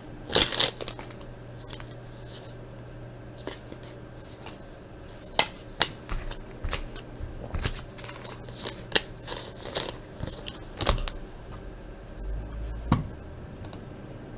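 Foil baseball card pack being opened and its cards handled. There are light clicks, snaps and rustles, sparse at first and busier from about five seconds in.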